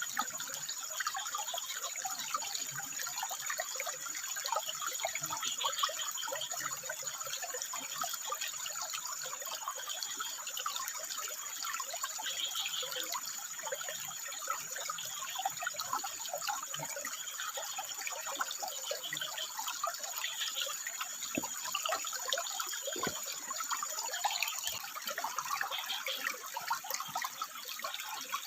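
Water trickling and splashing over rocks in a steady, irregular spatter. A thin, steady high-pitched whine runs underneath and stops near the end.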